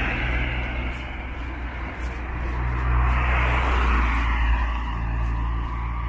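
Cars passing one after another, tyre and engine noise swelling and fading over a steady low rumble; the loudest pass comes about three to four and a half seconds in.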